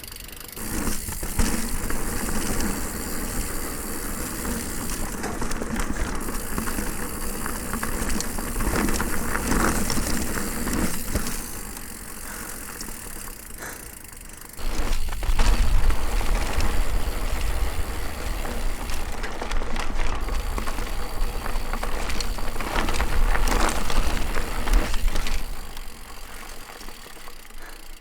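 Mountain bike riding on a trail, heard through a GoPro action camera's microphone: steady tyre and trail noise with chain and frame rattle. A little over halfway through it gets louder, with a deep rumble added.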